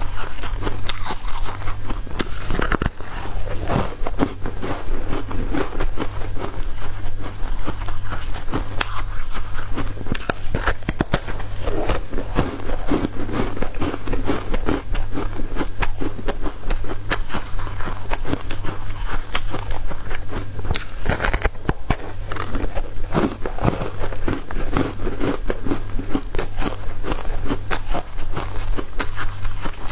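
Frozen coloured ice being bitten and chewed, a dense crackling and crunching as the ice breaks in the mouth, over a steady low hum.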